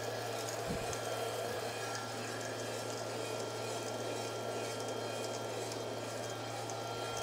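Small electric drum coffee roaster running steadily, its drum motor and fans giving a constant hum with a thin whine. Freshly roasted beans discharge from the drum into the cooling bowl with a faint light rattle.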